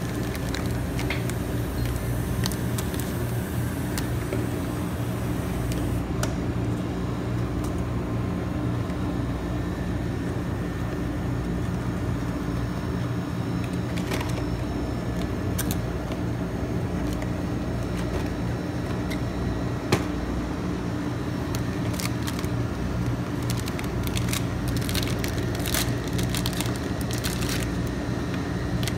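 Cardboard packaging and plastic cookie wrappers rustling and crinkling as they are handled and torn open, the crackling thickest near the end, over a steady low machine hum.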